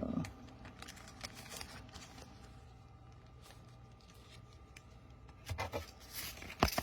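Light handling sounds on a tabletop: scattered small clicks and rustles, with a louder bout of rustling and a sharp click near the end.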